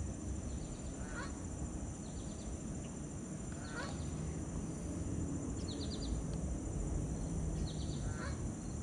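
Pond-side summer ambience: insects keep up a steady high drone while a bird gives short chirps every second or two, over a low rumble of wind.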